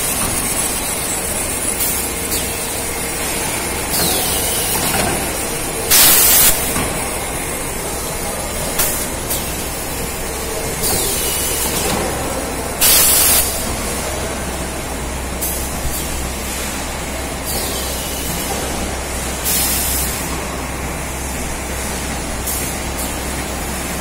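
Bottling-plant machinery running with a steady low hum, broken every few seconds by short, sharp hisses of compressed air venting; the two loudest come about six and thirteen seconds in.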